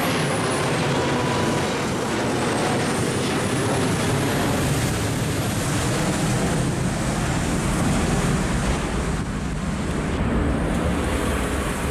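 Boeing 737-800 jet airliner climbing away overhead at takeoff power: a loud, steady jet roar with a faint high whine that dips, rises and falls again in pitch.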